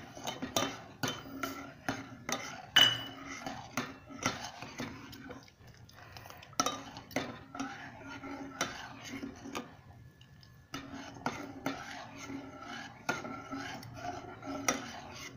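Long steel ladle stirring thick, reduced milk in a steel pot, clinking and scraping against the pot's sides and bottom in quick, irregular strokes. There is a brief pause about ten seconds in.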